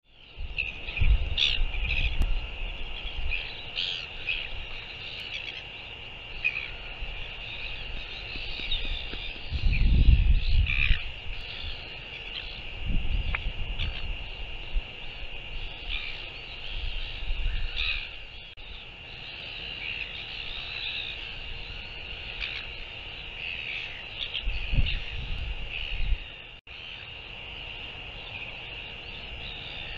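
Wind gusting on the microphone of an outdoor wildlife camera, loudest about ten seconds in, over birds calling and a steady high-pitched background chirring. The sound breaks off abruptly near the end.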